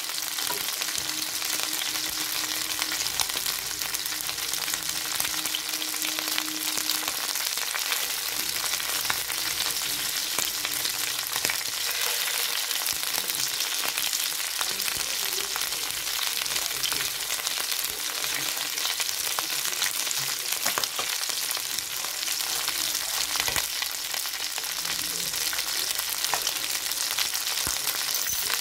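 Chicken drumsticks frying in hot oil in a stainless steel pan: a steady dense sizzle and crackle, with occasional sharper pops.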